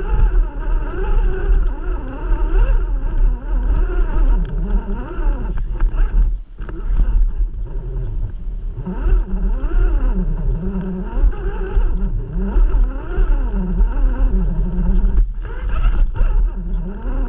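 Electric motor and gear drivetrain of an RC rock crawler whining, rising and falling in pitch as the throttle is worked, over a constant low rumble and scattered knocks from the chassis working over the terrain. The whine briefly cuts out about six seconds in and again near the end.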